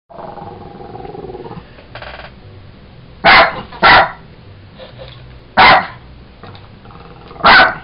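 Jack Russell terrier barking four times in short, sharp barks: two close together about three seconds in, one near the middle and one near the end.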